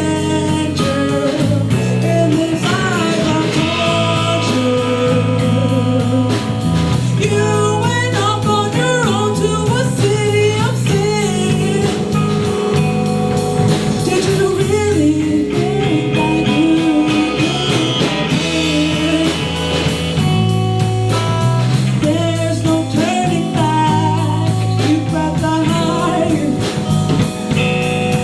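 A rock band playing live with a singer: electric guitar, bass and drum kit under a bending vocal line.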